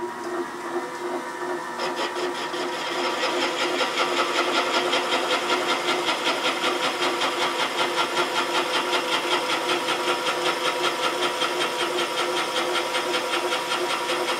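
Serdi 100 valve-seat machine's spinning cutter taking a 70-degree inside cut in a newly installed exhaust valve seat of a cast-iron Pontiac 455 cylinder head. It makes a steady ringing machining tone that pulses about three times a second, and grows louder and brighter about two seconds in.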